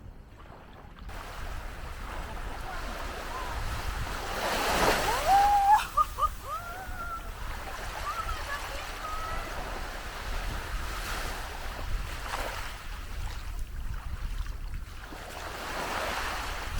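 Ocean surf washing onto a beach, swelling and easing with each wave, with wind buffeting the microphone. A few short high-pitched cries come through in the middle.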